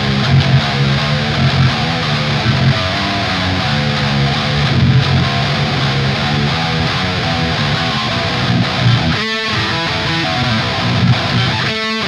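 Eight-string electric guitar with Invander humbucker pickups played through heavy amp distortion. It plays a low, dense riff with two brief stops, one about nine seconds in and one near the end.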